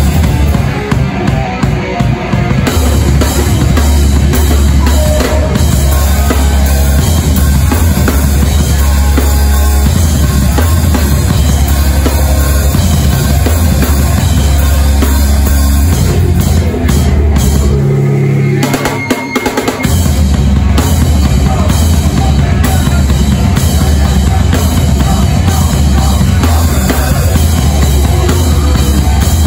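Hardcore band playing loud and live, with the drum kit up close and dominant: bass drum and snare hitting under distorted guitars and bass. About eighteen seconds in, the low end drops out for a brief break before the full band comes back in.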